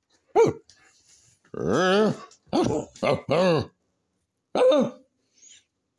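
Dog "talking": a run of six short vocal calls that bend up and down in pitch, the longest about two seconds in, with three quick ones after it and a last one near five seconds.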